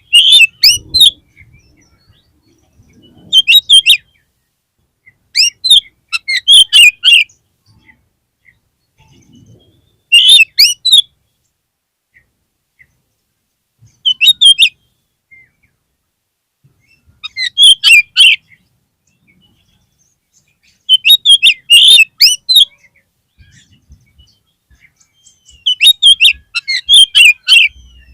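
Oriental magpie-robin (kacer) singing in about eight short, loud phrases of rapid, sliding high notes, each lasting a second or two, with a few seconds of silence between them.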